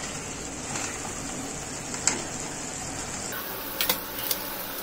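Thick prawn gravy simmering in a steel kadai on a gas burner: a steady low hiss with a few light clicks about two and four seconds in.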